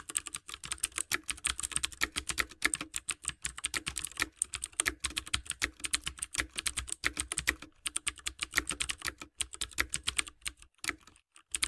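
Rapid typing on a computer keyboard, several keystrokes a second, used as a sound effect for text typed onto the screen; it thins out and stops shortly before the end.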